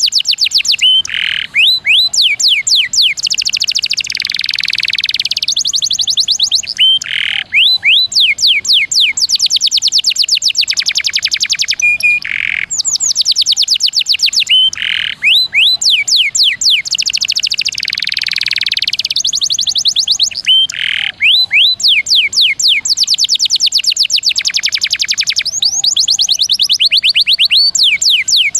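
Domestic canary singing a fast rolling song: long trills of rapid downward-sweeping notes mixed with a few short held notes. The same sequence of phrases comes round again about every eight seconds.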